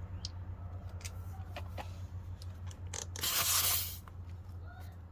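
Small clicks and knocks from handling a cordless tire inflator, with one loud hissing burst lasting under a second about three seconds in, over a steady low hum.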